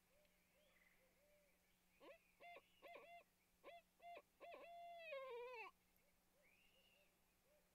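A barred owl giving its 'who cooks for you' hooting call: about half a dozen short hoots in quick succession, then a long drawn-out final note that falls and wavers. Fainter hoots sound before and after it.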